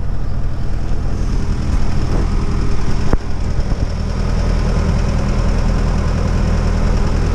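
Engine of a Fairmont rail motor car (track speeder) running steadily, with one sharp click about three seconds in.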